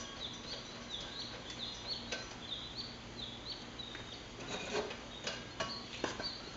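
Sharp metallic clicks of a wrench tightening a propeller nut, several in the second half. Under them runs a regular series of high chirps, about three a second.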